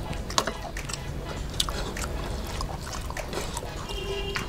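Fingers mixing rice with curry on a plate, making irregular wet, sticky clicks and squelches, with eating sounds.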